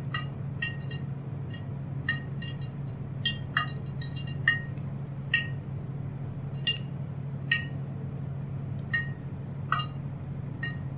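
Steel wheel dough cutter pressed through soft dough onto a wooden board, giving about fifteen short metallic clinks at uneven intervals. A steady low hum runs underneath.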